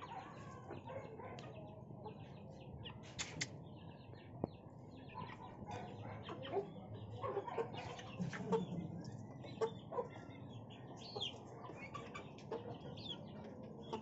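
Chickens at feeding: chicks peeping in quick short chirps throughout while a hen clucks, with a few loud bursts of wing-flapping around the middle.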